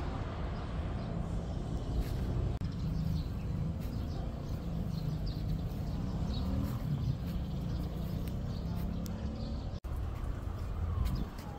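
Outdoor ambience: a steady low rumble of distant city traffic with faint, scattered bird chirps.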